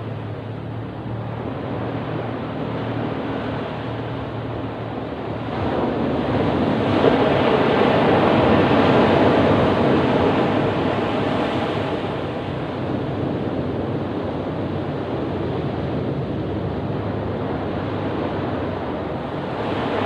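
Ocean waves breaking and washing on a beach. One wave builds about five seconds in, is loudest for a few seconds, then washes back to a steady surf.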